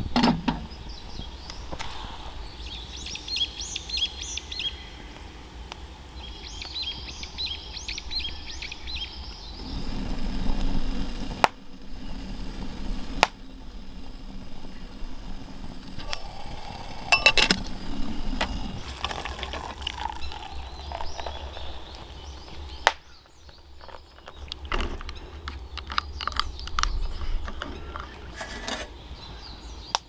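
Outdoor ambience with birds chirping in two short spells early on, a low hum for several seconds near the middle, and a few sharp metallic clinks while a camping kettle is set and handled over a wood fire.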